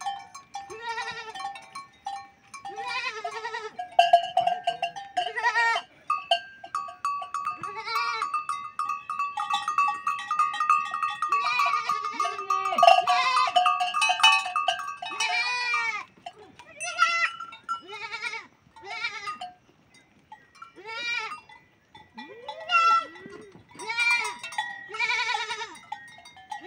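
A pen of goats bleating again and again, short arching calls from several animals at once, some overlapping. For about ten seconds in the middle a steady high ringing tone runs underneath the bleats.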